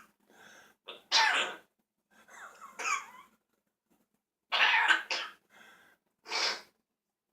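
A series of coughs and throat-clearing sounds, about five separate bursts, the loudest about a second in and again about four and a half seconds in.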